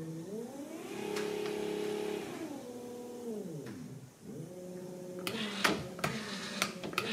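Watersnake electric trolling motor running out of the water, tested from its foot pedal: its whine rises as it speeds up, holds, then falls away as it slows about four seconds in, and rises again. A few sharp clicks come near the end.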